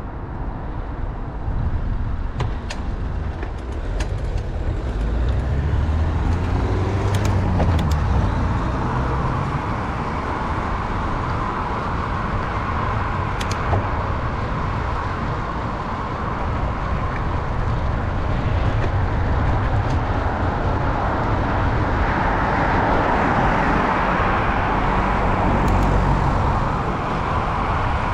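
Road traffic heard from a moving bicycle: cars passing, over a steady rumble of tyre and wind noise, with a few sharp clicks along the way.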